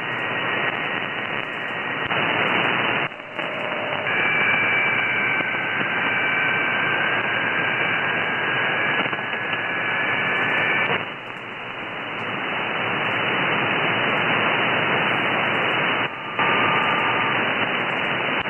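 Shortwave software-defined radio receiver in upper sideband giving steady band hiss and static, squeezed into a narrow voice-width passband, with faint steady whistles of carriers now and then. The noise drops out briefly three times as the receiver is retuned to other weather-fax frequencies.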